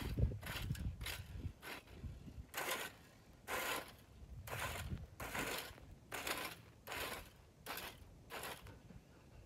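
Rake scraping through dry grass and dirt in a steady rhythm of short strokes, about one and a half a second.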